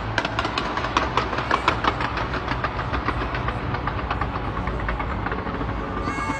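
Fireworks crackling: a dense run of rapid pops and snaps that thins out after about two seconds, over a low steady rumble.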